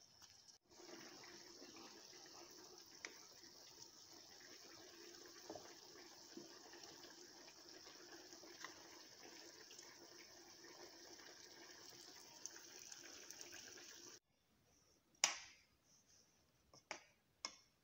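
Curry simmering in a frying pan over a gas burner: a faint steady hiss with occasional small pops, which cuts off suddenly about fourteen seconds in. After that come a few sharp knocks of a spoon against the pan.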